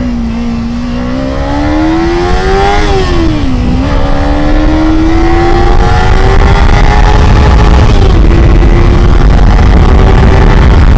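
Kawasaki Ninja 300's parallel-twin engine accelerating hard, its pitch climbing, dropping sharply at an upshift about three and a half seconds in, then climbing again more slowly and levelling off. Wind rush on the microphone grows louder as the speed rises.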